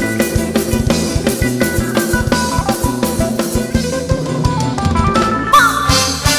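Thai ramwong dance band playing an instrumental passage through a PA. A drum kit keeps a steady beat of bass drum and snare under a bass line and a melody. The drums thin out near the end.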